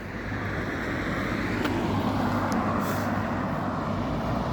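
Road traffic noise, a passing vehicle's engine and tyres growing slowly louder.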